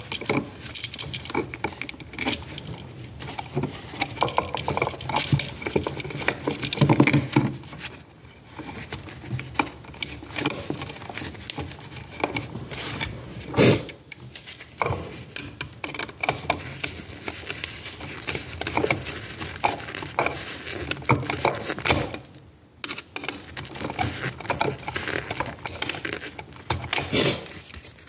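Gloved hands handling a GFCI receptacle and its wires up close: irregular clicks, taps and the rustle of work gloves. A sharper click about halfway through and another near the end.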